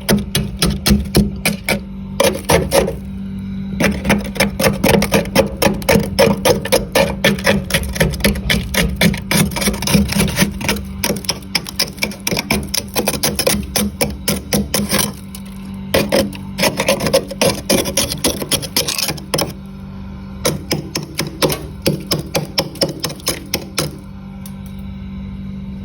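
Freezer frost being scraped in rapid repeated strokes, several a second, with a couple of short pauses; a steady low hum runs underneath.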